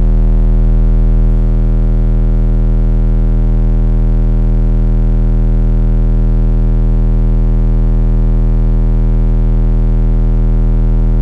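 Savard car-audio subwoofers played hard at roughly 500 to 750 watts on a steady low test tone for an SPL measurement: one loud, unbroken bass tone with a buzzy edge of many overtones, dipping slightly in level about a second in.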